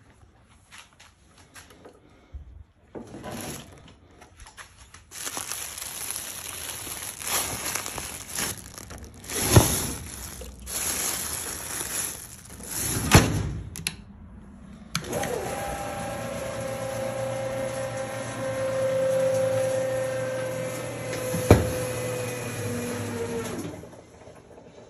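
Plastic bags of diapers crinkling and thumping as they are loaded into a trash compactor, then the compactor's electric motor runs for about eight seconds with a steady hum that sinks slightly in pitch as it crushes the diapers. A single sharp crack comes shortly before the motor stops.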